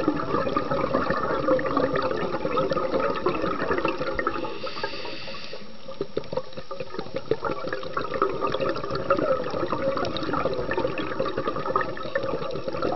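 Underwater sound on a scuba dive: a steady watery rush and bubbling, dotted throughout with dense small crackling clicks. About four and a half seconds in, a brief high hiss lasts around a second while the wash dips.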